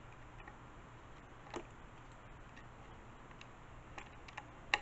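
A few light, sharp clicks and taps of a thin wooden model-airplane wing and fuselage being handled and turned over, one early and a small cluster near the end, the last the loudest, over a faint steady low hum.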